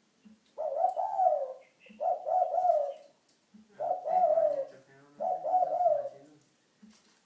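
Spotted dove cooing: four separate coo phrases, each about a second long, coming roughly every one and a half seconds.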